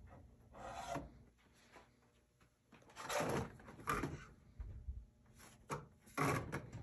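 Blister-carded action figures being handled on metal peg hooks: plastic packaging rustling and clicking against the pegs in a few short bursts.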